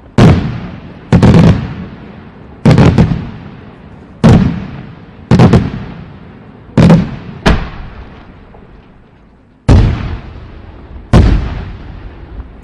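Fireworks shells going off in quick succession: about ten loud, sharp bangs, roughly one every second or so, with two close together about a second in and a longer pause before one near the end. Each bang is followed by an echo that dies away over about a second.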